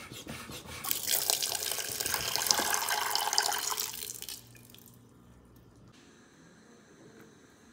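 A few light knocks, then a kitchen tap running water into a pot for rice for about three seconds before it stops.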